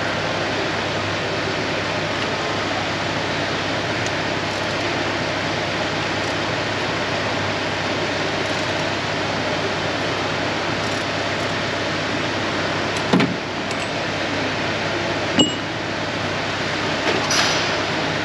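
Steady rushing background noise, with a couple of sharp metallic clinks from hand tools being worked on the engine's alternator mounting near the end.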